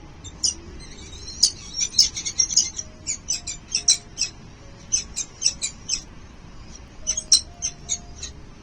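Nestling birds chirping in rapid clusters of short, high-pitched calls, typical of chicks begging as food is brought to the nest. Faint background music plays underneath.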